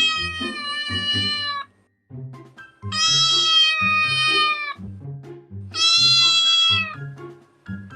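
Domestic cat meowing: long, drawn-out meows about every three seconds, each held at a steady pitch before tailing off. Background music with a low, repeating bass line plays underneath.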